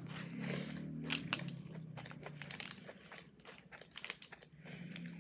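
Close-up chewing and crunching of food in the mouth, with irregular crackly crunches, a cluster about a second in and another near four seconds.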